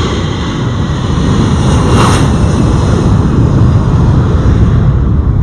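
Lockheed Martin C-130J-30 Hercules' four turboprop engines at takeoff power: a loud, deep rumble that swells to its loudest about two seconds in as the aircraft passes, with the higher part easing off near the end.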